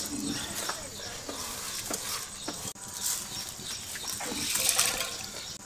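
Washed basmati rice poured from a vessel into a steel pot of boiling water, the grains dropping into the water. About four and a half seconds in, a faint animal call sounds in the background.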